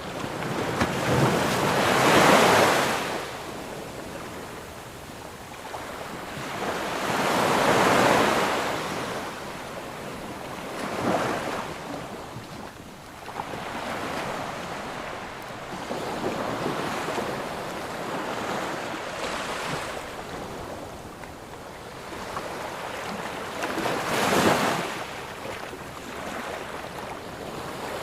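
Ocean waves breaking and washing up on a sandy beach, loud surges every few seconds over a steady wash, with some wind on the microphone.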